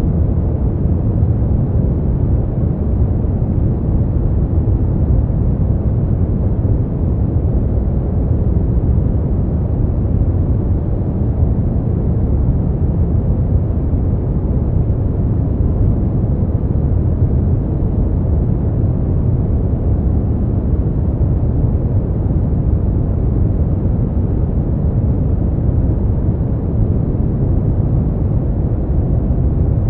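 Smoothed brown noise: a steady, even deep hiss, strongest in the low end and dull, with no high frequencies.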